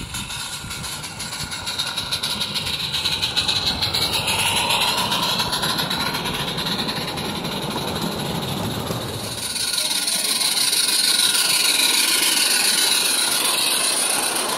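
16mm-scale model of the narrow-gauge steam locomotive Countess hauling a train of freight wagons past at close range: rapid, even chuffing together with the wagons' wheels rumbling and clicking on the track. It grows louder as the train comes near, eases briefly, then is loud again towards the end.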